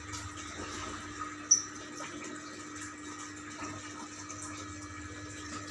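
Aquarium submersible pump running: steady bubbling and splashing of its outflow at the water surface, with a steady low hum. One short sharp click about a second and a half in.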